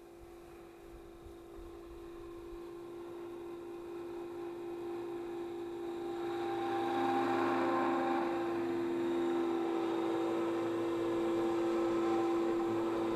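Electric Align T-Rex 500E RC helicopter in scale MD500 body flying in toward the microphone: a steady whine from its motor and rotor, which grows louder over the first half and then holds as it hovers close by.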